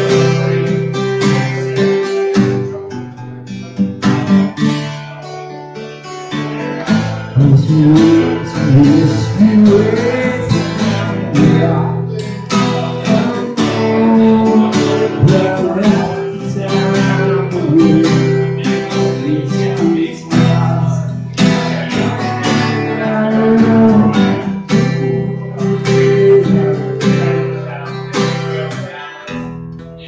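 Live solo acoustic guitar song: a steel-string acoustic guitar strummed and picked, with a man singing over it at times.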